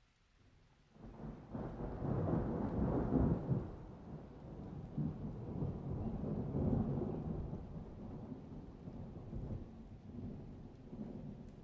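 A long roll of thunder. The rumble rises suddenly about a second in, is loudest over the next couple of seconds, then rolls on unevenly and slowly fades.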